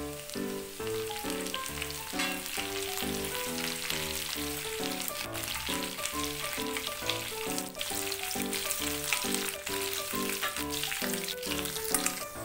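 Curry leaves, dried red chillies and mustard seeds sizzling in hot oil in a kadai, with a stir of the spoon near the end. Background music plays throughout.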